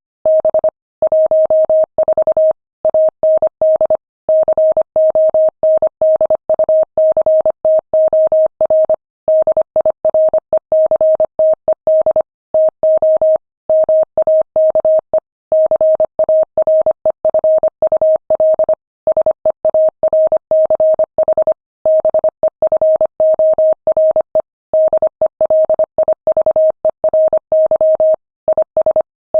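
Morse code sent at 25 words per minute: a single steady tone keyed on and off in rapid dots and dashes, with short pauses between words.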